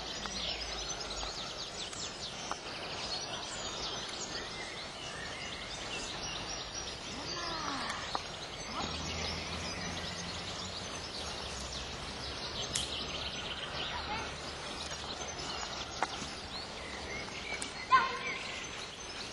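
Open-air background with small birds chirping and trilling on and off. Near the end comes one short loud shout, the loudest sound here.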